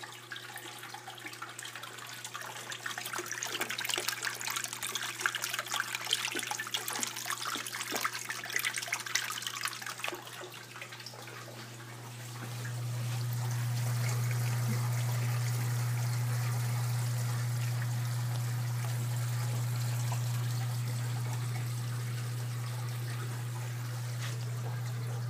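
Water splashing and trickling through an aquarium's overflow box and drain plumbing, over a steady low hum from the return pumps. About halfway through the splashing fades and the hum becomes louder and dominant.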